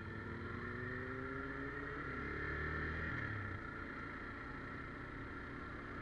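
Motorcycle engine running while riding, its pitch rising slowly over the first two seconds, dipping about two seconds in, then holding steady.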